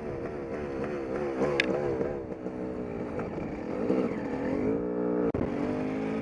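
1988 Yamaha YZ250 single-cylinder two-stroke engine, bored out and on an aftermarket exhaust, revving up and down repeatedly, with a longer rising pull that cuts out for an instant about five seconds in before it runs on.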